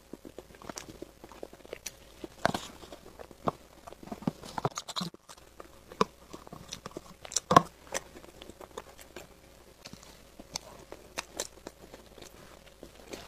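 Close-miked eating of a soft cream dessert: wet mouth clicks and smacks from chewing, with a metal spoon scraping and knocking in a thin plastic cup. Two sharper knocks stand out, one about two and a half seconds in and one about halfway through.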